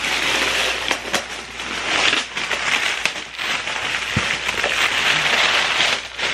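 Cardboard box and plastic wrapping rustling and crinkling as a package is handled and unpacked, with many small crackles.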